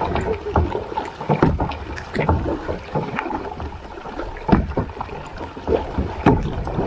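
Kayak being paddled: uneven paddle strokes splashing in the water, with sharp knocks among them.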